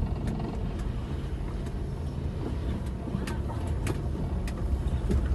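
Car driving over a rough dirt road, heard from inside the cabin: a steady low rumble of engine and tyres, with scattered small knocks and rattles.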